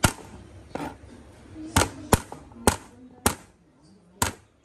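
Knife chopping through pieces of ginger root, the blade knocking sharply on the cutting board about seven times at an uneven pace.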